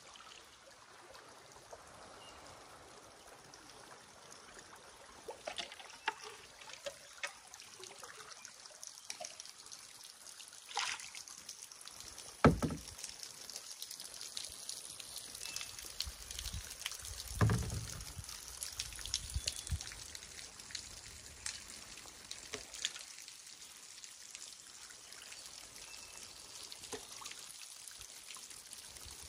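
Creek water trickling and lapping around a canoe, with scattered drips and small splashes. Two louder knocks, the first about twelve seconds in and the loudest, the second about five seconds later with a short low rumble.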